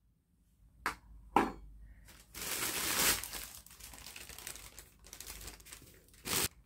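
Crinkly packaging being handled: two sharp taps about a second in, then a longer stretch of crinkling and rustling, and a short rustle near the end.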